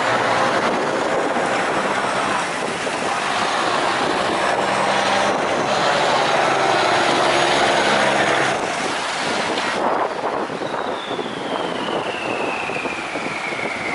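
Diesel engines of wooden fishing boats running as they motor past in a line, a dense steady engine noise. About ten seconds in, a high whine starts and falls steadily in pitch.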